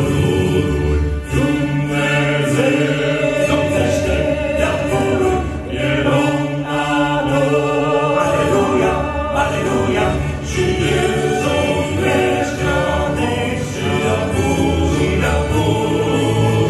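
Male vocal quartet singing in close harmony through microphones, with held chords over a low bass voice.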